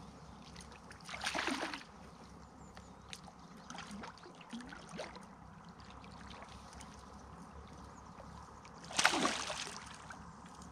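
Hooked carp splashing at the water's surface while being played on a rod. There are two loud splashes, about a second in and about nine seconds in, with a few weaker swirls between.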